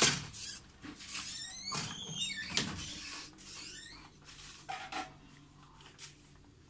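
Knocks, clicks and rubbing noises of someone moving about a small room and handling things, with a few short squeaky sweeps around two seconds in. The loudest knock comes right at the start; it grows quieter after about five seconds.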